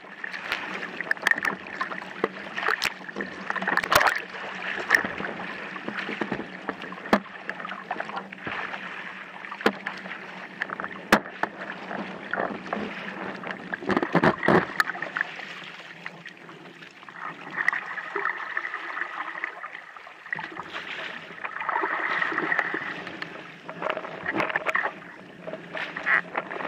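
Water rushing and splashing against a windsurf board under sail, heard close up from the rig, with frequent sharp knocks and spray hits. Twice past the middle, a steady hum with several tones joins in for a few seconds.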